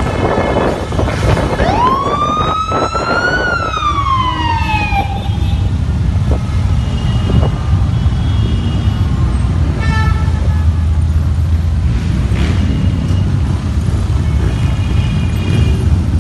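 Many Harley-Davidson V-twin motorcycles riding past in a parade, a steady deep rumble. About two seconds in, a siren wails up and then down once, and a few brief horn toots sound later.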